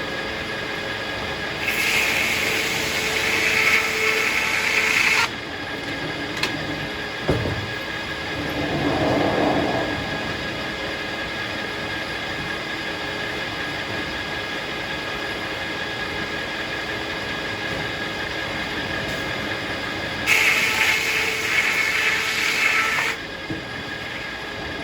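Circular sawmill running with a steady whine, its blade cutting through a hackberry log twice, each cut about three seconds of louder, harsher, higher noise before dropping back to the running sound.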